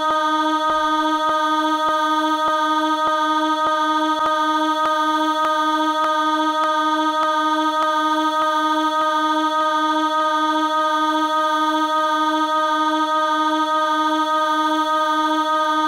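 A sampled choir voice (the 'Vox D#3' sample of an Octave Choir SoundFont) holding one sustained vowel on D-sharp, looping continuously. A short click repeats about every 0.6 seconds where the loop end joins the loop start, the sign of a sample loop that is not yet set cleanly.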